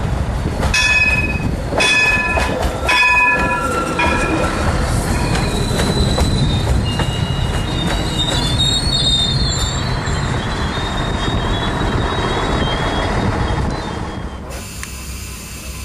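A Bombardier Talent diesel railcar arriving: four short horn toots about a second apart, then steady wheel and track rumble with high thin wheel squeal as it rolls past. Near the end the sound cuts to a quieter rumble heard from inside the train.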